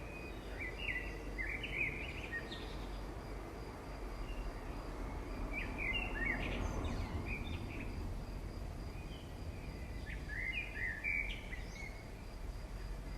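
Birds chirping in short bursts of song that recur about every four to five seconds, over a steady low background rumble.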